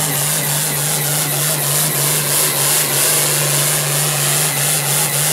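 International Harvester farm tractor's diesel engine running flat out at a steady high pitch under full load, pulling a weight-transfer sled.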